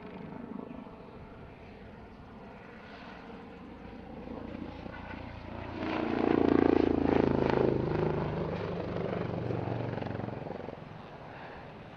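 Airbus H145M helicopter with twin Turbomeca Arriel 2E turboshafts making a display pass: the rotor and turbine noise grows loud about halfway through, then fades away.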